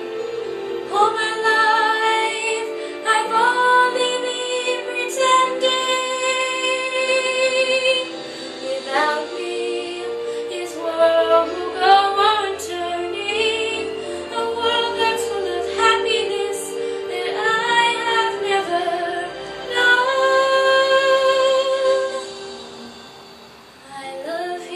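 A young woman singing solo, holding notes with vibrato over a sustained instrumental accompaniment. Her voice stops near the end, leaving the quieter accompaniment.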